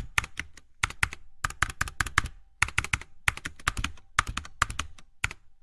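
Typing sound effect: quick runs of keystroke clicks as text is typed onto the screen letter by letter. The clicks stop shortly before the end.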